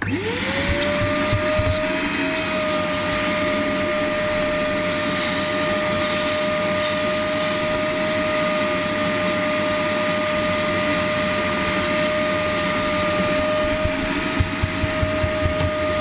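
Caramba 5.0 wet/dry vacuum cleaner running with a crevice nozzle, sucking crumbs out of a car interior. Its motor rises quickly to speed at the start, then holds a steady whine over a rushing of air, with a few low knocks near the start and near the end.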